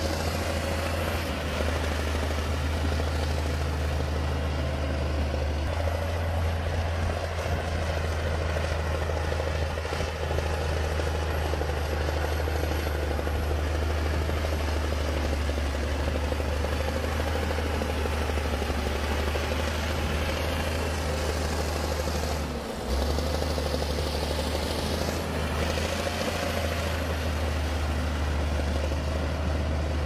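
Bulldozer's diesel engine running with a steady low drone, dropping out for a moment about three-quarters of the way through.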